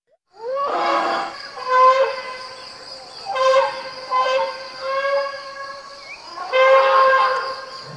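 Elephants trumpeting: a series of loud horn-like calls, some opening with a rising note, each held for about a second, the loudest near two seconds in and near seven seconds in.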